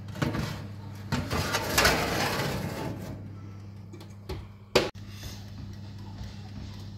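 A metal baking tray scraping and rattling as it slides onto the oven rack, then one sharp bang near the five-second mark as the oven door shuts. A steady low hum runs underneath.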